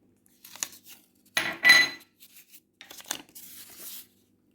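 Utensil knocking and clinking against a dish or container, the loudest clink about a second and a half in with a brief ring, then a short scraping rasp near the end.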